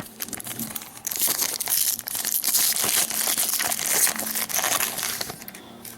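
Foil trading-card pack wrapper crinkling and crackling as it is handled and crumpled, loudest in the middle and dying away near the end.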